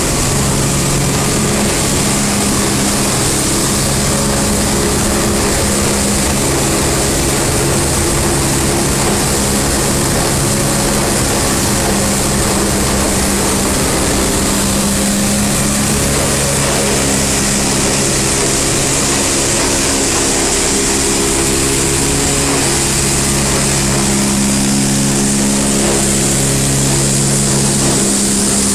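PE/PP film washing line machinery running: a loud, steady hum of motors holding several low tones, over a hiss of noise.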